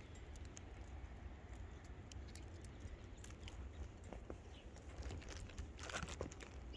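Faint scattered crunches of footsteps in fresh snow, with a louder crunch about six seconds in, over a low steady rumble.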